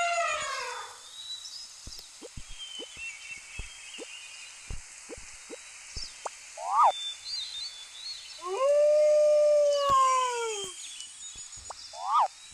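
Animal sound effects: the tail of an elephant's trumpet fading out in the first second, then a short rising call about seven seconds in, one long wolf howl of about two seconds that drops in pitch at the end, and another short rising call near the end.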